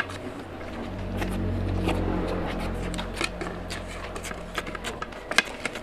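Fingers mixing and squeezing curry-soaked rice on a plate, with wet sticky clicks and squishes, one sharp click near the end. A low rumble swells in about a second in and fades out around four seconds in.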